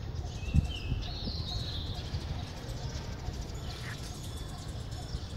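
Outdoor ambience: a steady low rumble with a few short, high bird chirps near the start and one short falling bird call about four seconds in.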